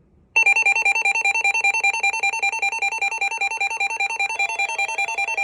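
Weather alert radio's electronic alarm going off for a severe thunderstorm warning. It is a rapid two-tone warble, about ten pulses a second, that starts suddenly a moment in. Fainter steady tones join in near the end.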